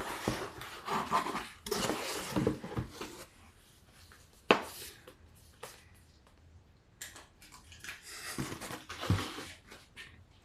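Irregular rubbing and rustling of things being handled, as a box is unpacked, with one sharp click or knock about four and a half seconds in.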